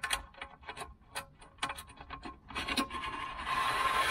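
Screw and washer being slid along the slot of an aluminium mounting rail: irregular metallic clicks and ticks, then a steady scraping rasp that sets in about two and a half seconds in.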